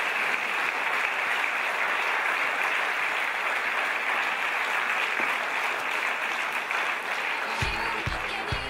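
A large seated audience applauding steadily. Near the end, music with a regular beat comes in.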